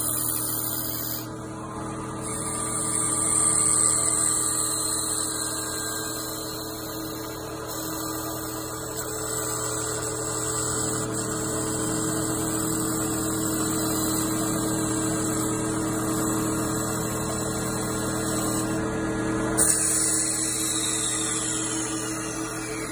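Mini CNC wood lathe running steadily while its spindle and cutters turn a wooden chess piece, a machine whine over the hiss of wood being cut. A couple of knocks come near the end, then a high whine falls in pitch as the spindle spins down.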